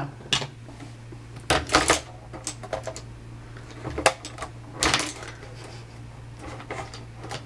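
Clicks and clatters of makeup items being rummaged through and handled, a few sharper knocks among lighter ticks, over a faint steady low hum.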